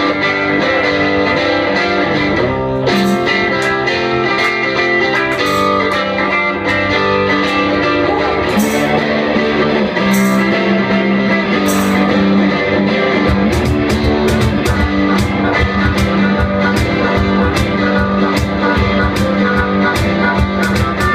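Live rock band playing: guitar chords ring out over a few scattered high strikes, then a steady drum beat comes in about two-thirds of the way through.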